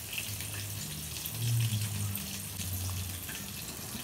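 Steady hiss at the gas stove where duck curry is simmering in a clay pot, with a low hum underneath.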